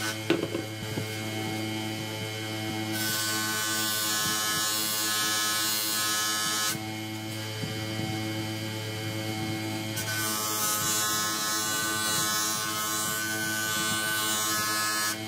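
Bench grinder with a buffing wheel running with a steady electric hum. Twice, a steel sword blade is pressed to the spinning wheel for polishing, adding a hissing rush: once from about three seconds in for nearly four seconds, and again from about ten seconds in to the end.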